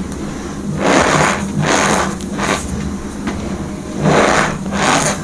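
Packed powder (cornstarch or gym chalk) being pressed, squeaking and crunching in about five short bursts over a steady low hum.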